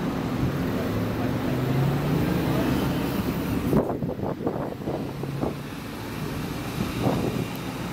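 Scania K410EB6 coach's 13-litre six-cylinder diesel engine pulling away from a stop, a steady low drone as it moves off. A sharp knock comes about four seconds in, followed by a few softer knocks.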